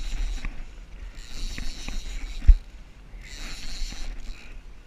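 Sea water washing against a jet ski in choppy swell, in hissing surges about every two seconds over a low wind rumble on the microphone. One sharp knock comes about two and a half seconds in.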